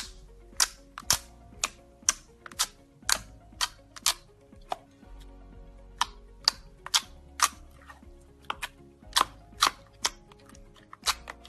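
Slime popping with sharp clicks, about two a second at uneven spacing, over background music with steady held tones.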